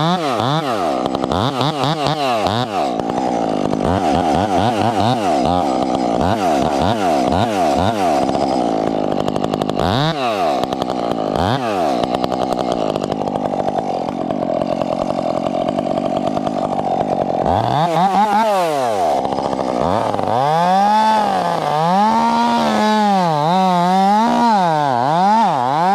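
Stihl top-handle chainsaw cutting through a large tree trunk. The engine revs up and down, is held at high revs through a long stretch of the cut in the middle, then rises and falls about once a second near the end.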